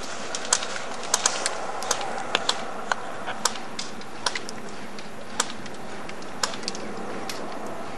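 Scattered sharp clicks of airsoft gunfire, single shots at irregular intervals of roughly two a second, over a steady hiss.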